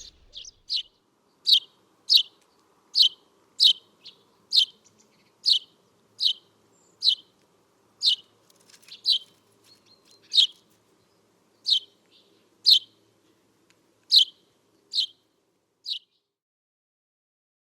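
Eurasian tree sparrow giving a series of single sharp chirps, roughly one a second, which stop near the end.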